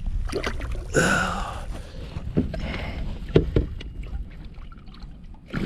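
A redfish being let go over the side of a kayak: water splashing about a second in, then a few sharp knocks against the kayak hull.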